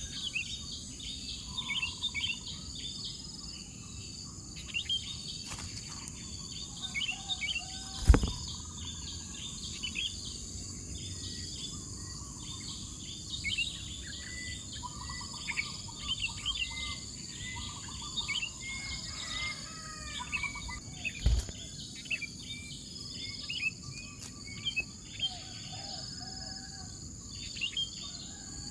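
Many short, quick bird chirps over a steady high insect drone. There is a sharp knock about eight seconds in, the loudest sound here, and another around twenty-one seconds.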